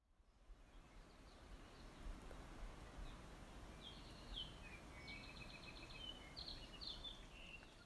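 Faint outdoor ambience with a low rumble, and small birds chirping high in pitch over the second half, including a quick run of repeated notes.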